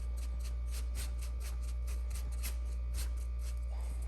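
Sawdust and wood glue being stirred together into a paste, a run of faint scraping strokes, about three or four a second, over a steady low hum.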